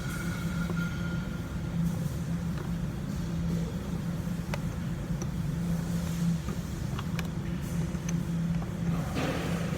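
A steady low, unevenly pulsing engine hum of an idling vehicle, with a few light clicks, typical of parts being handled and fitted.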